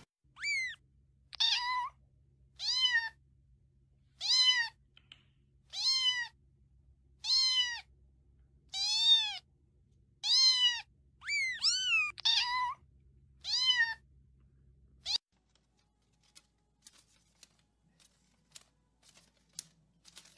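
A cat meowing over and over, about a dozen meows a second or so apart, each rising and then falling in pitch. The meows stop about fifteen seconds in, leaving only a few faint clicks.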